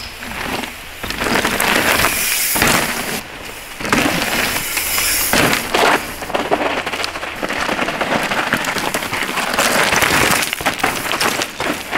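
Scott Ransom full-suspension mountain bike ridden fast down a loose forest dirt trail: tyres crunching and skidding through dirt, with many sharp knocks and rattles as the bike hits roots and rocks.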